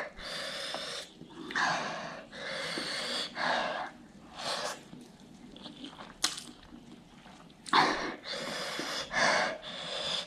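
A person breathing hard through the mouth in rapid, noisy huffs and sharp intakes of air, about nine of them with a short pause midway, as from the burning heat of ghost pepper noodles.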